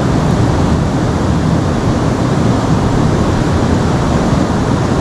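Steady rushing of river water, a dense, even noise that is heaviest in the low end.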